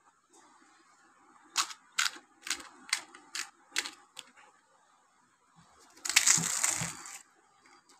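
A crisp, hollow fried gupchup (pani puri shell) clicking sharply about seven times under the fingers, roughly two clicks a second, then cracking open under the thumb with a crackling crunch about a second long near the end.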